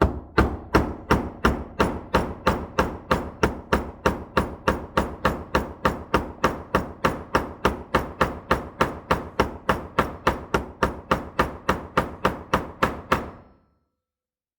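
Small hammer striking a rivet in a steady run of light blows, about three a second, peening it over to pin a steel screwdriver blade to a hook tool. The blows stop abruptly about 13 seconds in.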